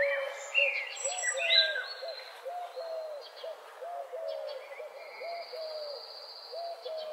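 Birdsong: short hooting notes repeating about twice a second, with other birds chirping and warbling higher up in the first couple of seconds and a thin high trill later on.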